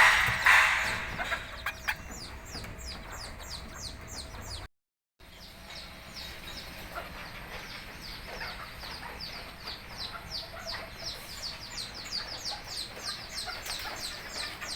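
Flock of kate bantam chickens calling, with a steady run of short, high, falling peeps several a second. There are a few loud noises right at the start and a brief total dropout about five seconds in.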